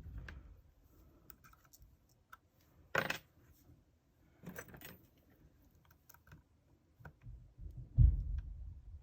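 Steel lock pick and tension wrench working the pins of a Yale euro cylinder: scattered light metal clicks and scrapes, with a sharper clack about three seconds in. A dull low thump near the end is the loudest sound.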